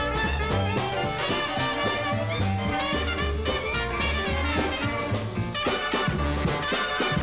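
Small Dixieland jazz band playing live: clarinet and tenor saxophone with brass, string bass and drums, the bass keeping a steady beat.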